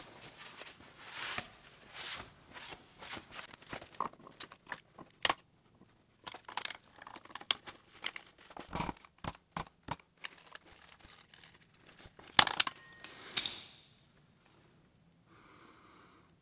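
Paper towel rustling as it wipes a steel tractor loader frame, with scattered clicks and knocks of steel parts being handled. Two louder sharp knocks come near the end, then it goes quiet.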